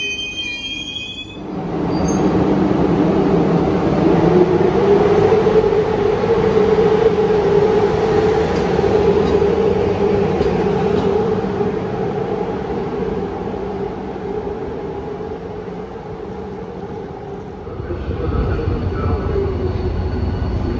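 Brief high squeal of train wheels, then an HŽ Putnički prijevoz locomotive running slowly past along the platform: a loud steady hum with a whine that rises slightly in pitch a few seconds in. Near the end a deeper rumble comes in from another approaching train.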